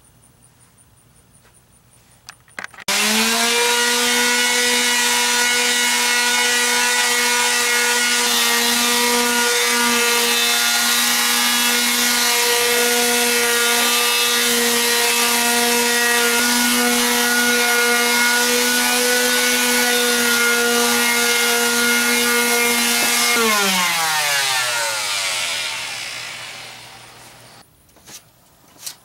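Corded electric palm sander sanding a plywood panel, switched on about three seconds in and running at a steady pitch. Near the end it is switched off and winds down, its pitch falling over a few seconds.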